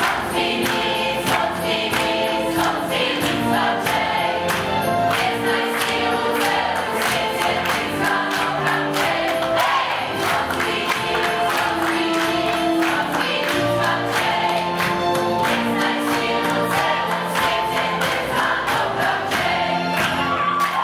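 A group of young voices singing a Christmas carol together, with the audience clapping along in time.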